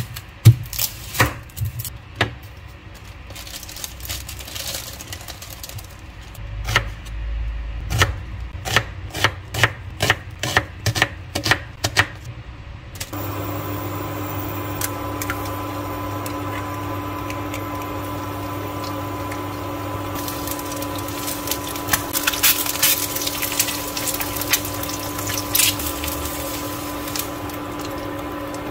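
A run of sharp taps, clicks and knocks from household work, then a steady appliance hum comes on about halfway through, with light clattering over it.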